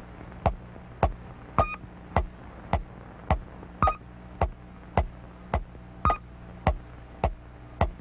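Electronic cartoon sound effect: short falling-pitch bleeps pulsing evenly, nearly two a second, with a higher beep added on every fourth pulse, over a low steady hum.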